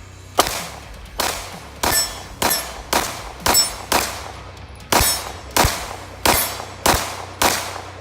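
A CZ P-10 C 9mm pistol fired twelve times in a steady string of about two shots a second, with a short pause about four seconds in; each shot is followed by a ringing decay.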